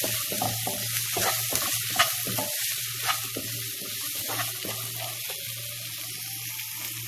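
Chopped vegetables and sauces sizzling steadily in a non-stick frying pan, with a wooden spatula stirring and scraping them against the pan in several short strokes.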